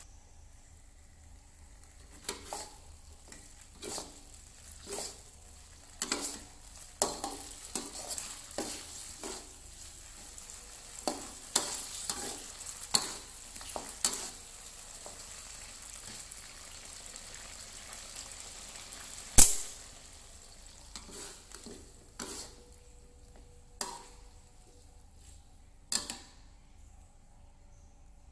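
Metal spatula scraping and knocking against a metal wok as chicken wings in sauce are stir-fried, over a light, steady sizzle. The strokes come irregularly, with one sharp clank about two-thirds of the way through and the stirring stopping near the end.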